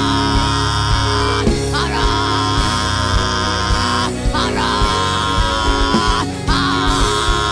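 Live worship music with a steady drum beat and bass under long, wavering held notes, sung or played, about one to two seconds each with short breaks.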